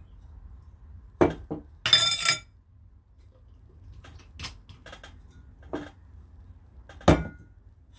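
Metal kitchen utensils clinking and knocking: a sharp clink about a second in, a brief metallic jangle with ringing around two seconds in, a few light taps, and one loud knock near the end.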